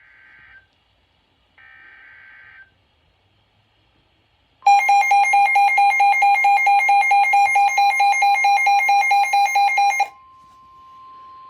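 Emergency Alert System SAME header data bursts: two short screeching digital bursts, one after the other. Then, about four and a half seconds in, the loud steady EAS attention tone sounds for about five and a half seconds and cuts off, leaving a fainter steady tone. Together they signal the start of a new alert.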